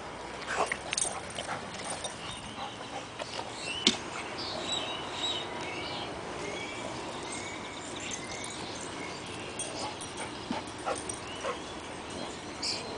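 Boston terrier puppy whimpering in short whines, eager to get at toads in the pool, with a few faint clicks and knocks.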